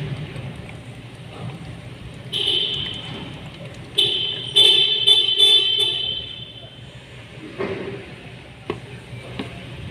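A horn honking: a short honk about two and a half seconds in, then a louder, longer honk from about four to six seconds. A few light knocks follow near the end.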